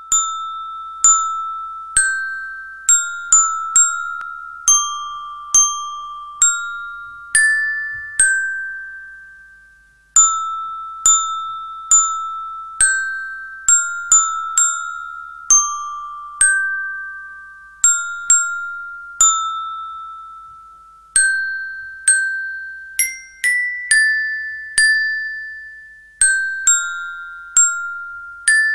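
Background music: a slow, simple melody of single high, bell-like notes, each struck and ringing away before the next. It breaks off for about two seconds around the middle, then carries on.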